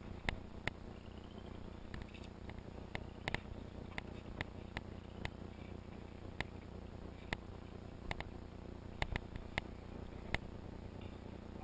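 Scattered sharp clicks and light taps of gear being handled, about a dozen at irregular intervals, among it a box of brass cartridges.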